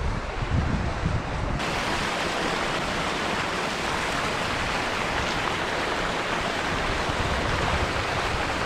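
Hot-spring water pouring from spouts and a small waterfall into the pool, a steady splashing hiss that turns fuller and brighter about a second and a half in.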